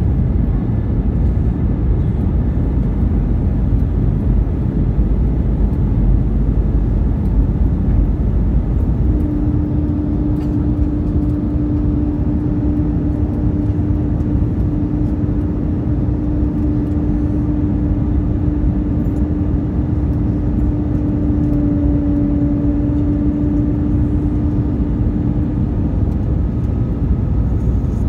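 Cabin noise of an Airbus A319-132 on its landing approach, heard from a seat over the wing: a steady rush of airflow and the sound of its IAE V2500 engines. A steady hum sets in about a third of the way through and fades out near the end.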